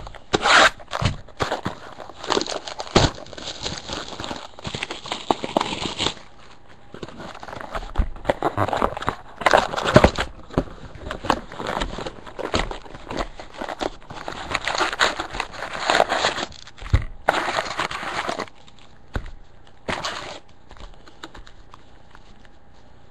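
Plastic shrink-wrap crinkling and tearing as a trading-card hobby box is unwrapped and opened, with irregular rustling and handling of the cardboard box and foil packs; the rustling eases off briefly about six seconds in and again near the end.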